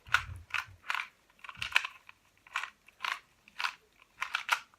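2x2x2 Rubik's cube being turned rapidly by hand: a quick, irregular run of about a dozen plastic clicks and clacks as the layers snap round, the last moves of a solve.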